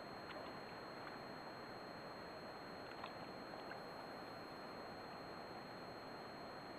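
Soft, steady wash of small wavelets lapping at the rocky edge of a loch, with a few faint ticks and splashes.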